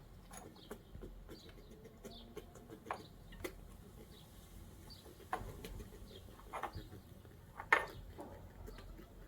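Red squirrel sneezing in short, sharp bursts, about five times, the loudest near the end; the uploader puts the sneezing down to a cold. A small bird calls repeatedly in the background with short high notes.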